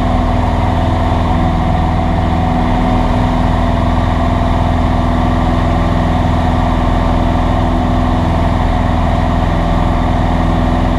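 Cessna 172's piston engine and propeller running at a steady, unchanging note.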